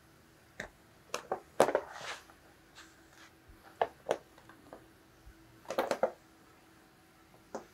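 A cat pawing and scrabbling at a piece of packing twine on a carpet: scattered short scratches and taps, bunched together about one and a half to two seconds in and again about six seconds in.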